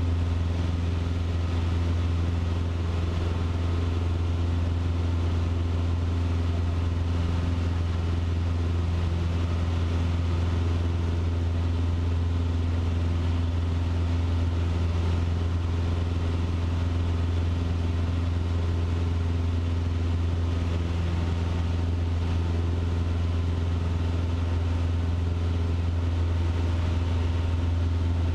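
Cessna 150's four-cylinder Continental O-200 engine and propeller droning steadily in flight, heard inside the cabin, with a deep even hum that holds constant at steady power.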